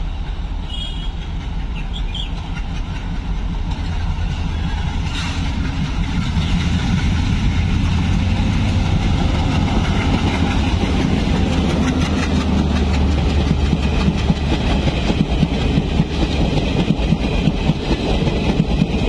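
WDM3A diesel locomotive, with its ALCO 16-cylinder engine, running through at speed with a heavy rumble that grows louder as it draws near and passes. Near the end it gives way to the express coaches rolling by, with rhythmic wheel clatter over the rail joints.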